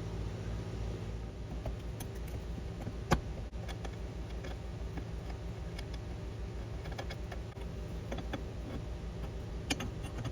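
Scattered small clicks and taps of metal and plastic parts being handled while an AC accumulator and its O-ring are fitted, with one sharper click about three seconds in, over a steady low hum.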